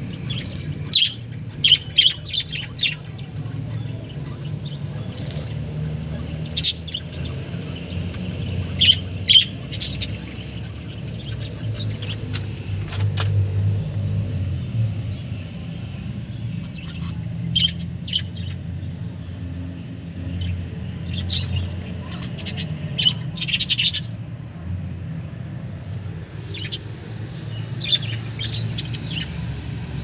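Budgerigars chirping in short, sharp clusters here and there, over a steady low rumble.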